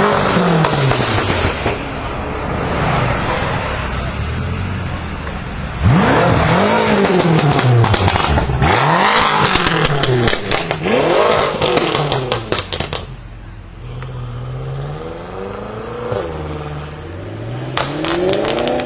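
BMW M5 F10's twin-turbo V8, running catless downpipes, revved in repeated short blips, the pitch rising and falling each time, with crackles and pops as the revs fall. About two-thirds of the way through it drops back to a quieter idle, then two more short blips, the last with another burst of crackles.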